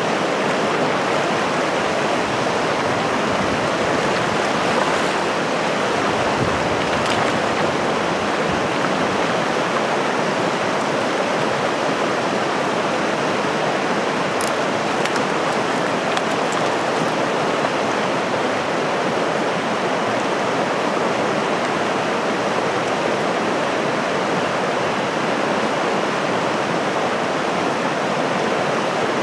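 Steady rush of a rocky mountain river flowing over stones, an even, unbroken water noise.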